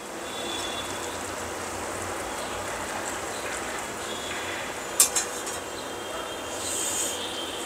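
Steady hiss of a pot of hot sugar syrup just taken off the stove, with one sharp metal clink of a utensil or pan about five seconds in.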